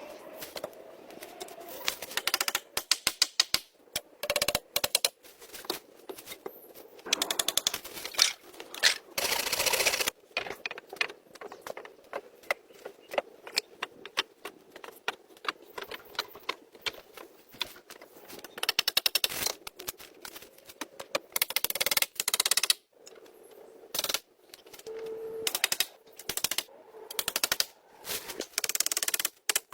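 Rapid runs of sharp clicks and knocks, many a second, coming in bursts that stop and start abruptly.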